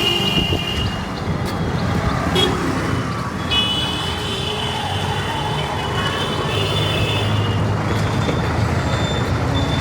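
Busy street traffic: engines running with a steady low rumble. A short horn toot sounds at the start, and a long, steady horn blast begins about three and a half seconds in and lasts about four seconds.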